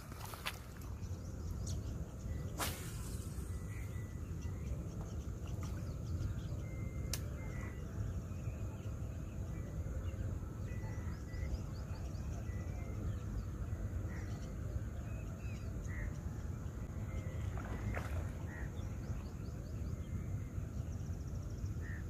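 Open-air ambience: a steady low rumble, with short bird chirps scattered throughout and a few sharp clicks.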